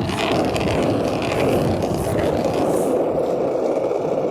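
Wheels rolling steadily over pavement while riding: an even, continuous rumble with no pauses.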